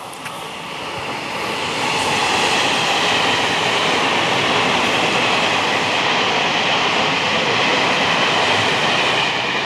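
Taiwan Railway Chu-Kuang express passenger train passing through a station without stopping: a steady loud rush of carriages and wheels on the rails, building over the first two seconds and easing off near the end.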